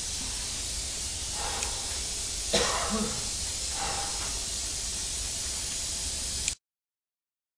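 Steady hiss of recording noise with a low hum underneath, broken by a few faint short sounds and one louder brief sound about two and a half seconds in. The sound cuts out to silence about six and a half seconds in.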